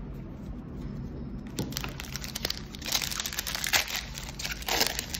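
Foil wrapper of a Magic: The Gathering booster pack crinkling and tearing as it is ripped open by hand, starting about a second and a half in.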